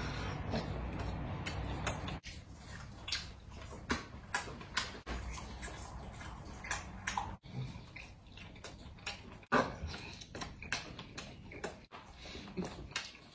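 A person eating food off skewers: chewing and wet mouth and smacking sounds, with many short clicks scattered through.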